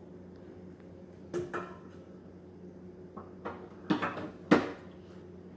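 A handful of sharp knocks and clunks, like objects or doors being handled, with a single knock early and a quick cluster later. The loudest comes about four and a half seconds in, over a steady low hum.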